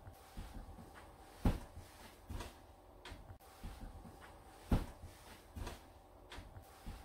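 Faint dull thumps at a slow, even pace, one about every three seconds, each followed by lighter knocks, over a faint steady hum.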